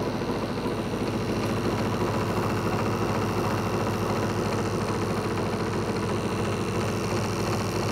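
Distributor testing machine running steadily, its motor spinning a Ferrari twin-points distributor with an even hum while the freshly reset points gaps are checked.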